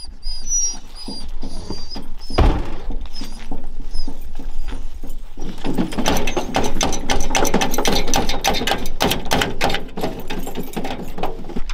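Excited beagles whining, then barking and yelping rapidly and continuously from about halfway through. A single thump comes about two seconds in.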